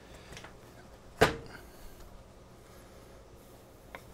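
A single sharp metallic knock about a second in, with a short ring, against faint handling rustle as a motorcycle fork leg is worked by hand.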